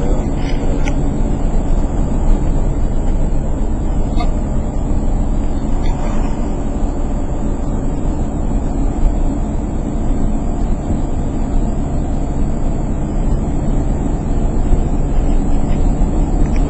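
Steady low rumble of a vehicle's engine and road noise heard from inside the cabin while driving.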